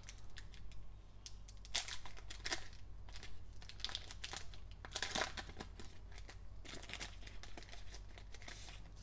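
Foil wrapper of a trading-card pack crinkling and tearing as gloved hands open it and slide the cards out: irregular rustles and crackles, loudest about five seconds in, over a steady low hum.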